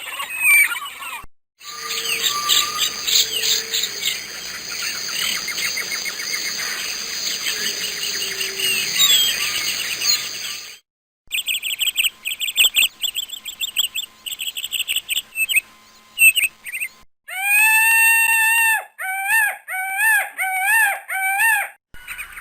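A string of bird recordings. First a dense chorus of many small birds chirping, then a run of quick short chirps. Near the end comes one long clear call, followed by a few shorter calls that rise and fall.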